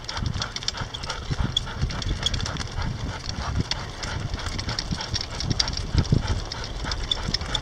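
Two Bouvier des Flandres dogs trotting on pavement in harness, pulling a sulky: an irregular patter of footfalls and clicks over a low rumble.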